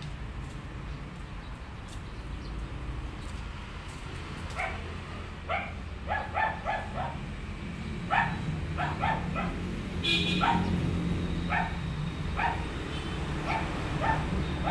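A dog barking in short, quick yaps that start about a third of the way in and come in clusters, over a low steady rumble of traffic.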